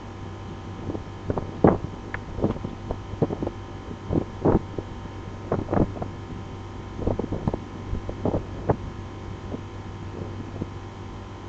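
Two long practice swords whooshing through the air as they are swung, a quick run of swishes in clusters that stops about nine seconds in, over a steady low hum.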